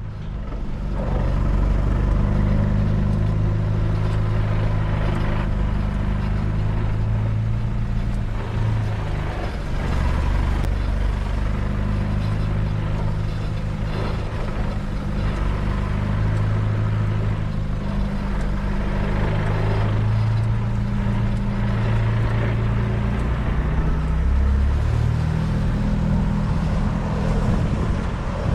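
4x4 vehicle's engine running as it drives, its pitch rising and falling several times as it changes speed.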